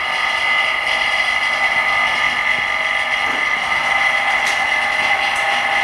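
Small electric motor of a screen-refurbishing machine running with a steady high whine.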